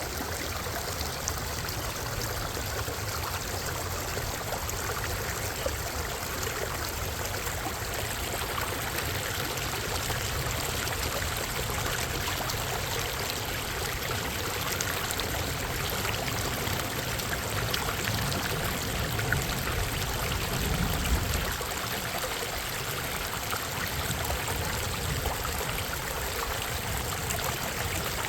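Creek water rushing steadily, with a low rumble swelling briefly about two-thirds of the way through.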